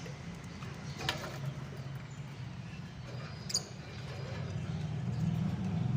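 Lovebirds giving two short, isolated chirps, one about a second in and a sharper, higher one past the middle, over a steady low hum that swells toward the end.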